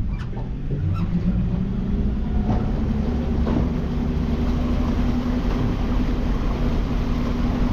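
Boat engine under way, rising in pitch over the first couple of seconds as it speeds up and then running steadily, as the boat comes around to troll back over the same line.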